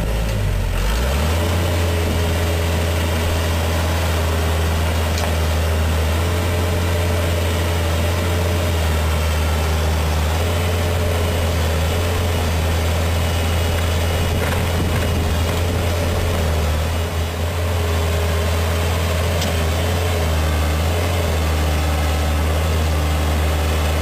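Case 580L backhoe loader's four-cylinder diesel engine running steadily, its note shifting a few times and dipping briefly about two-thirds of the way through.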